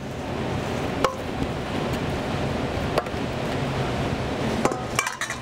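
Sliced peaches sizzling as they drop into hot browned butter in a stainless steel pan, a steady hiss, with a few sharp clinks of a metal spoon against the steel bowl.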